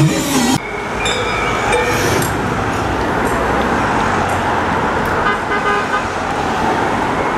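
Publicity caravan trucks and cars driving past, a steady rush of engine and tyre noise with a few short horn toots.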